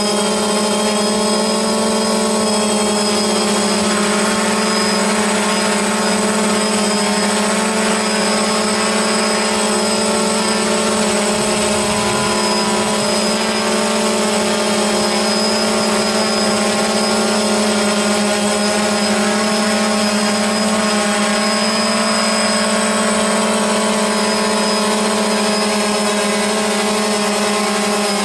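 DJI Phantom quadcopter's propellers and motors humming steadily, a constant high-pitched drone with no change in pitch.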